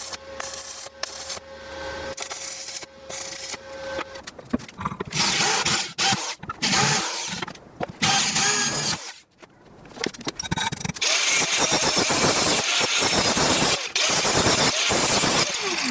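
A handheld power tool working wood in several spells, with a brief stop about nine seconds in; the longest and loudest run comes near the end.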